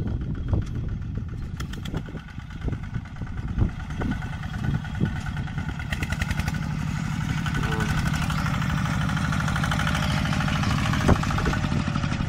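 Khmer-built tractor's engine running steadily under plowing load, getting louder through the second half. A few sharp knocks are scattered through the first half.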